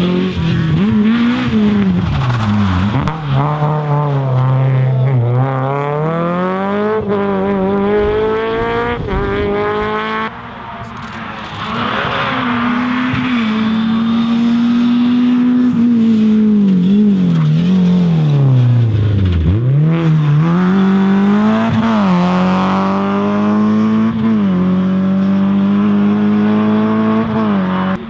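Rally car engines revving hard, the pitch repeatedly climbing and dropping back as the drivers accelerate, shift and lift for corners. The sound breaks off and changes abruptly about ten seconds in, then another long run of high revving follows.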